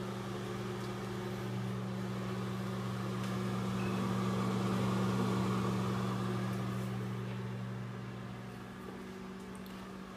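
Built-in microwave oven running on a one-minute cycle: a steady electrical hum with a fan whirr, growing somewhat fainter toward the end.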